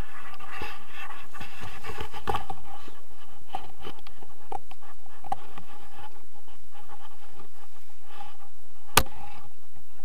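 Steady rushing of wind over a paraglider's harness-mounted camera in flight, with scattered scratches of harness and gear and one sharp click about nine seconds in.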